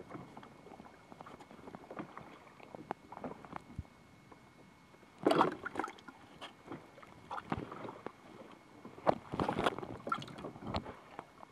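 Irregular splashing, sloshing and knocks of water and handling on a small open fishing boat as fresh-caught fish are handled, with the loudest splashes about five seconds in and again near nine to ten seconds.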